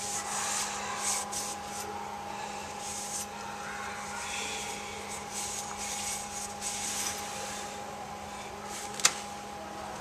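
Shop towel rubbing and wiping grit off a metal part, with towel rustling, over a steady background hum. A single sharp click near the end.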